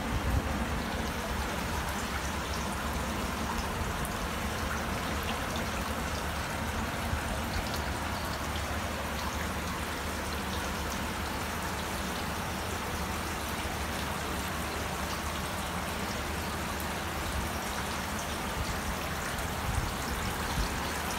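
Water spraying from a pipe along the edge of a catfish egg-hatching tank, falling onto the tank's water in a steady, even splashing.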